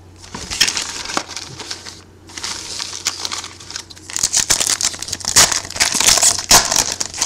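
Plastic foil wrapper of a trading-card pack crinkling and rustling as it is torn open and handled, loudest in the second half.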